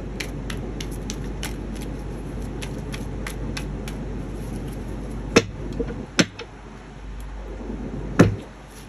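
A steady low hum with a run of light ticks, about three a second, and a few louder clicks in the second half. The last click, near the end, comes as a hand reaches onto the tarot cards laid out on the table.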